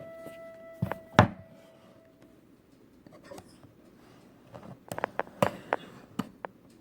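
Hands handling packaging, making sharp clicks and knocks: one loud knock about a second in and a quick run of clicks and taps about five seconds in.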